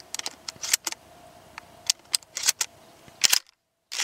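Shells being pushed into the tube magazine of a short-barrelled pump-action 12-gauge shotgun and the action being handled: a run of sharp metallic clicks and clacks, cutting off abruptly near the end.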